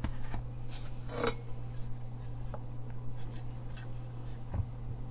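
Hands handling a small amplifier circuit board and its aluminium front panel on a wooden desk: light rubbing and small scattered clicks, over a steady low hum.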